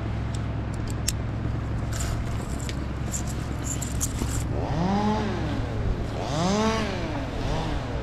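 Climbing rope and metal rigging hardware scraping and clicking against a rigging pulley and the bark of a fir trunk as the rope is handled, over a steady low hum. In the second half, three drawn-out tones rise and fall in pitch.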